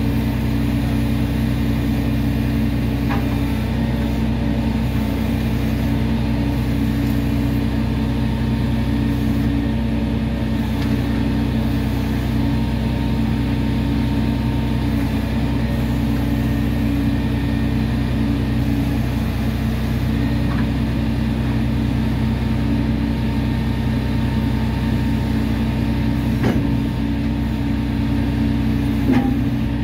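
Engine of heavy equipment running steadily at an unchanging speed, with a few light knocks, one about three seconds in and two near the end.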